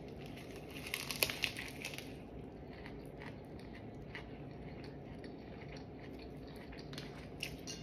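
Someone biting into a tofu chicken sandwich with lettuce, with a burst of crunching about a second in, then chewing with scattered small crunches.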